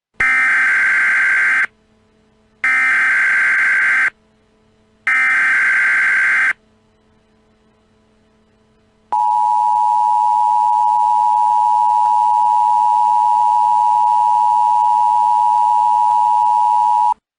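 Emergency Alert System activation signal: three short bursts of shrill warbling data tones (the SAME header), about a second apart, then a single long steady alert tone lasting about eight seconds that cuts off suddenly. Here it marks an emergency action termination.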